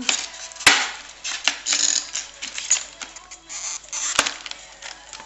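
Scissors cutting packaging tape and paper wrapping rustling as a taped-up DVD package is opened, with two sharp clicks, one under a second in and one about four seconds in.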